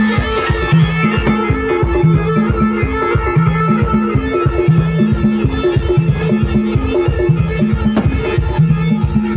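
Instrumental stretch of Timli band music: a repeating low bass riff over a steady, fast drum beat, with keyboard lines above.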